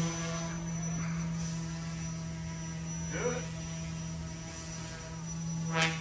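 Goosky S2 RC helicopter's rotor and electric motor running with a steady, even-pitched hum. Near the end comes a short sharp scrape, taken for the blades striking the table.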